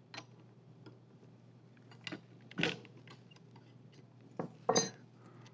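Metal tools clinking against an angle grinder's spindle as an Allen wrench loosens the stop nut, with a wrench held on the spindle nut: a few scattered clicks and knocks. The loudest, near the end, is a short ringing metal clink.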